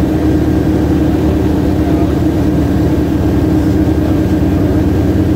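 High-wing light aircraft's engine and propeller running steadily in flight, a loud even drone heard from inside the cockpit.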